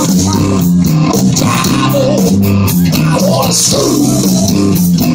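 Hard-rock band playing live and loud through a PA: electric guitars, bass guitar and drums in an instrumental stretch of the song.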